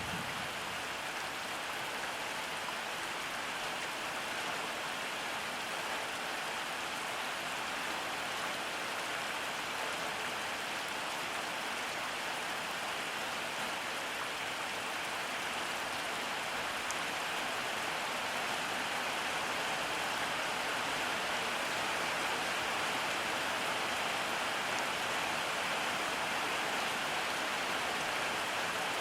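Steady rain falling and pattering on surfaces, an even hiss that grows slightly louder over the second half.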